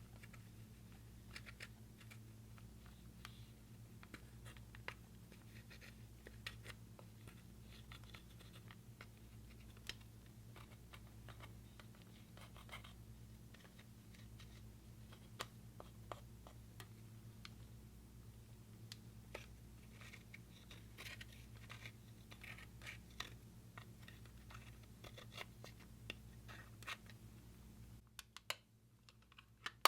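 Slime being worked by hand: faint, scattered sticky clicks and crackles over a steady low hum. The sound drops out briefly near the end.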